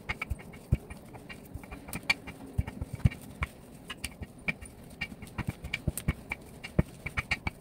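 Wooden rolling pin rolling out bread dough on a table: irregular clicks and knocks, a few each second, as the pin is pushed and lifted.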